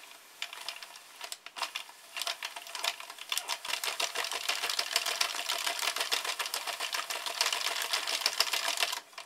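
Sentro 22-needle circular knitting machine being hand-cranked in tube-knitting mode, its plastic needles clicking through the cam track as rows are knitted. The clicks are sparse at first, then settle into a fast, steady clatter that stops shortly before the end.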